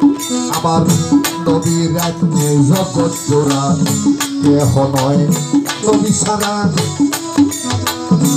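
Live Bengali Baul folk music: an electronic keyboard melody over a quick, even rattling percussion beat.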